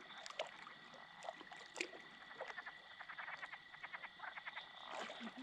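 Faint chorus of frogs calling at night: scattered short clicks and quick runs of clicking calls over a steady high-pitched whine.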